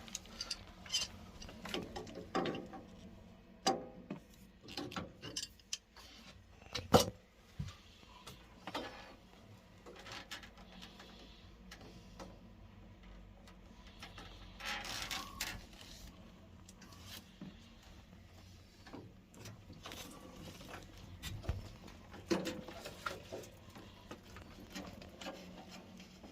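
Scattered clicks, taps and knocks of hand tools and metal parts being handled on a boiler under repair, irregularly spaced, with the sharpest knock about seven seconds in. A faint steady low hum runs underneath.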